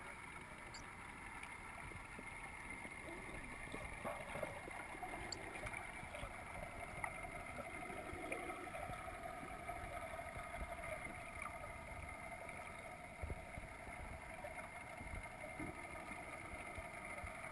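Underwater ambience picked up by a submerged camera: a steady drone with a few faint clicks and knocks.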